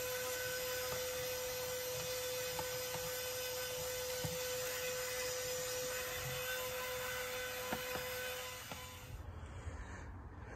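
Small handheld vacuum cleaner running with a steady whine and hiss, with a few light knocks as it is worked over the floor; it switches off about nine seconds in.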